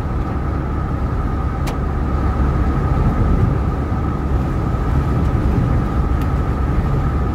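Inside the cab of a VW camper van with a TDI diesel engine conversion, under way at speed: a steady engine drone with road and wind noise, and a steady high-pitched whine. There is one short click about a second and a half in.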